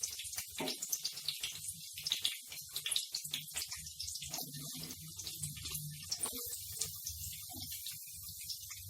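Onions sizzling and crackling in hot sesame oil in a pan, the crackle dense at first and thinning out after a few seconds, over a low steady hum.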